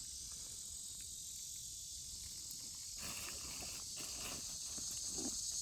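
Steady high-pitched chorus of insects in late-summer woods, a continuous shrill hiss. Fainter irregular rustles and knocks join about halfway through.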